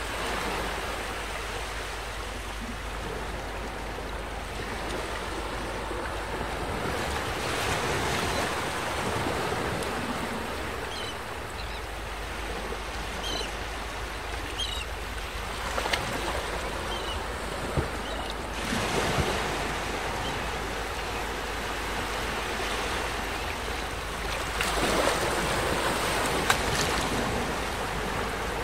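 Small waves breaking and washing up a sandy beach: a continuous surf hiss that swells louder twice, about a third of the way in and again near the end.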